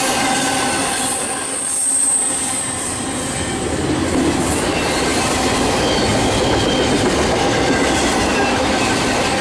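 Double-stack intermodal freight cars rolling past at about 50 mph: a steady loud rumble and rattle of wheels on rail, with the wheels singing in steady high tones and a thin high squeal a second or two in.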